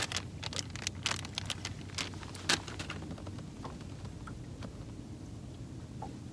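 Small, irregular clicks and rustles of close handling, thick for about the first three seconds and then sparse, over a low steady hum.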